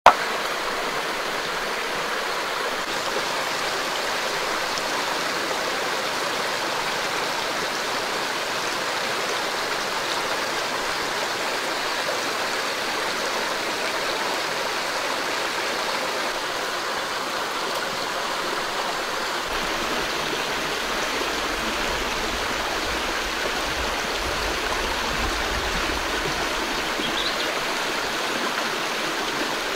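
Shallow rocky stream running over stones: a steady, even rush of water with no break.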